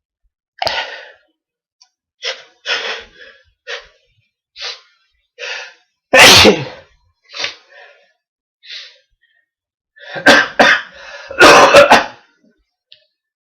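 A man with a cold sneezing: a run of short, sharp breaths building up, one loud sneeze about six seconds in, then more quick breaths and another loud sneeze near the end.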